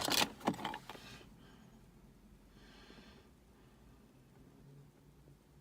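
A few light clicks of the shift knob parts being handled, then quiet with one faint breath through the nose about three seconds in.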